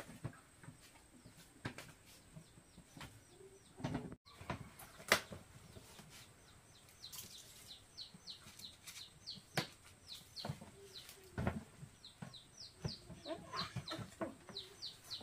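Chickens clucking and cheeping, with a fast run of short, high, falling cheeps, three or four a second, starting about halfway through. Scattered sharp knocks and taps sound throughout.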